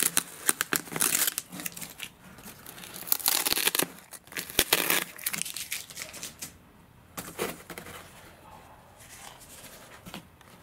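Crinkling and rustling of foil-faced bubble-insulation wing covers as they are handled and pulled from a packing crate, in irregular bursts that are busiest in the first half and quieter later.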